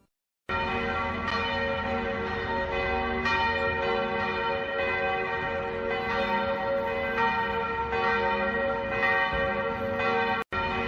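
Church bells ringing, with overlapping strikes about once a second that build a continuous ringing wash. It starts about half a second in after a brief silence, and cuts out for an instant near the end.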